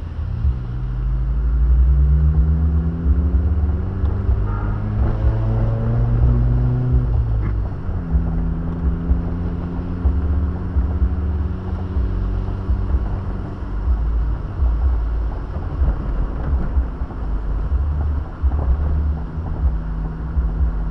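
Car engine heard from inside the cabin, climbing steadily in pitch as the car accelerates for about seven seconds, then dropping at a gear change and running steady, over a constant low road rumble.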